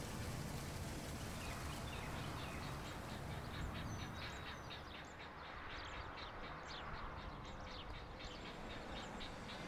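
Birds chirping in many short, high calls, several a second, beginning about two seconds in, over a low rumble of outdoor ambience.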